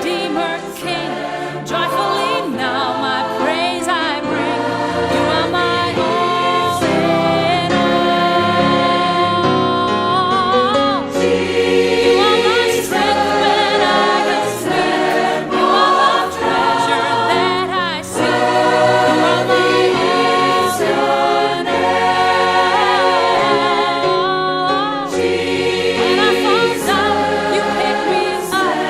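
Gospel choir singing, many voices holding wavering, sustained notes over a low bass line.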